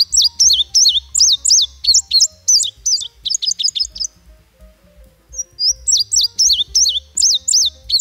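Male indigo bunting singing: two songs of high, quick, sharply sliding notes, the first ending about four seconds in and the second starting about a second later.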